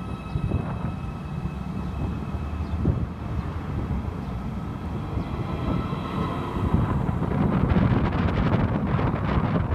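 Siemens Desiro electric multiple unit (OSE class 460) moving off from a station platform: a steady high whine with overtones over a low rumble, the whine fading about seven seconds in as the rumble of the departing train grows louder, with wind on the microphone.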